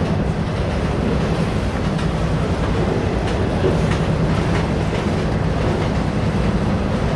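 Freight train of autorack cars rolling past: a steady rumble of steel wheels on the rails, with a few faint clicks scattered through it.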